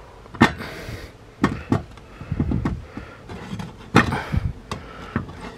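A few sharp knocks and clinks as a stainless steel pot with a glass lid is gripped with a cloth and lifted off a wooden shelf.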